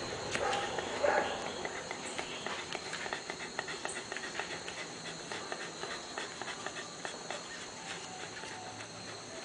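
A Bull Terrier puppy whimpers briefly near the start. Then comes a long run of small, irregular crackling clicks as micropore tape is wrapped around its ear, over a steady high chirring of insects.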